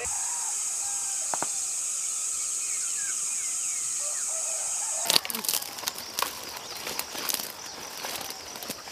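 A steady high-pitched insect chorus with a few faint chirps. About five seconds in it cuts to close rustling and clicking: soldiers' footsteps through brush and their gear rattling.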